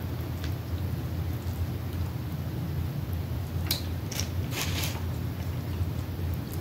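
Close-miked eating of snow and Dungeness crab: a few sharp cracks and crunches of crab shell a little past halfway through, over a steady low hum.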